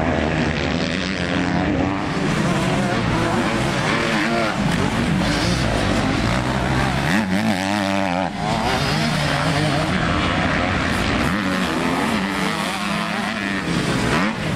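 Motocross dirt bike engines running hard on the track, revving up and falling back as the riders work the throttle and shift, with more than one bike heard at once.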